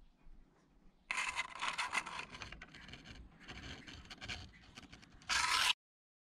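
Scraping and rustling noise, loud from about a second in, ending in a short louder burst that cuts off suddenly to silence.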